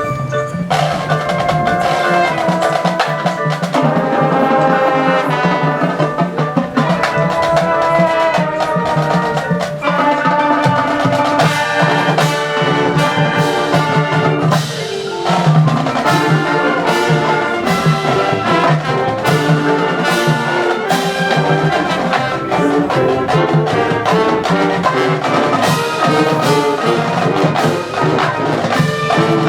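High school marching band playing: brass sustaining chords over mallet percussion and drums.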